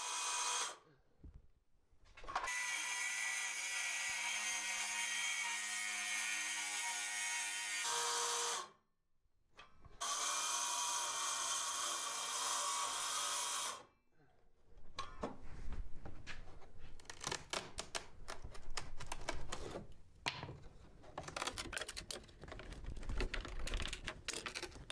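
DeWalt cordless circular saw cutting lap siding with its blade set shallow, in two steady runs of a few seconds each, the motor starting and stopping abruptly. After that, irregular knocks and scraping as the cut siding is worked loose and pulled off the wall.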